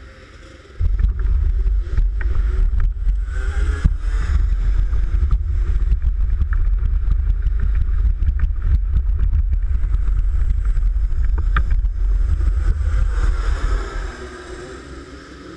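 Heavy low buffeting and rumbling on the camera's microphone, starting suddenly about a second in and dropping away near the end. Racing kart engines are heard passing near the end, once the buffeting stops.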